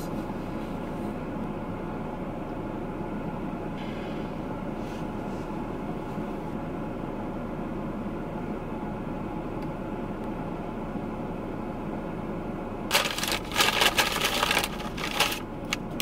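A steady low hum inside a parked car, then, about 13 seconds in, a paper fast-food bag crinkling and rustling for a couple of seconds as it is opened and rummaged through.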